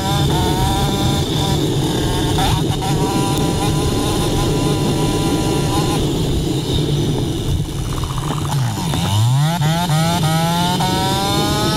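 Off-road dirt bike engine running hard over a steady rushing noise. A little past two-thirds of the way in, the revs drop sharply, then climb back up as the bike accelerates again.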